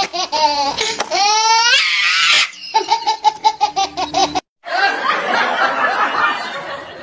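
Laughter sound effect dubbed over the video: quick, rhythmic bursts of laughing with a rising glide about a second in. After a sudden break near the middle, a rougher, noisier stretch follows.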